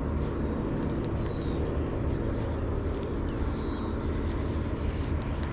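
Steady low hum of a distant engine, with two short bird chirps that fall in pitch.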